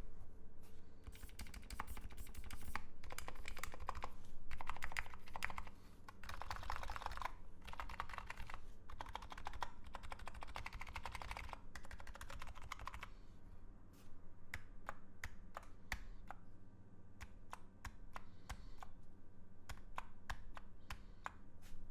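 Electro-capacitive keyboard with Topre-style rubber domes being typed on: quick, dense runs of keystrokes for the first dozen seconds or so, then slower, separate keystrokes.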